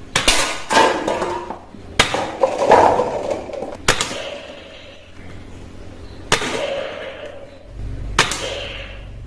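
Five sharp hard clacks, about two seconds apart, each followed by a brief rattle.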